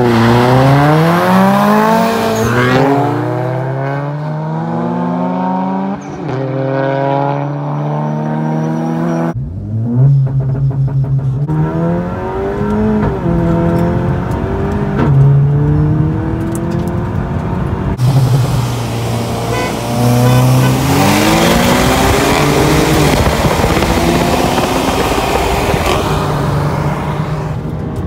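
Cars accelerating hard through the gears in street drag races. The engine note climbs in pitch and drops back at each upshift, over several short runs. From about ten seconds in it is heard from inside a chasing car.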